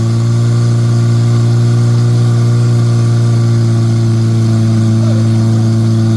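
Portable fire pump's engine running steadily at a loud, even pitch while it pumps water to the hose jets.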